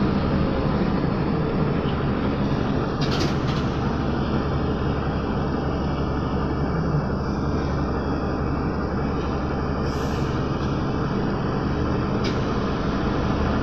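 Trolza-5275.05 Optima trolleybus heard from inside the passenger cabin while riding: a steady low hum of the running gear and road noise, with a few brief clicks or knocks.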